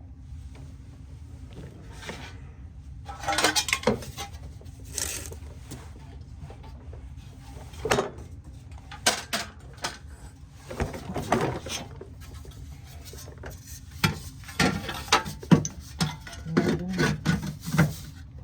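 Irregular metallic clinks, scrapes and knocks of hand tools and sheet steel being handled on a workbench, a few sharp knocks standing out and the clatter growing busier near the end.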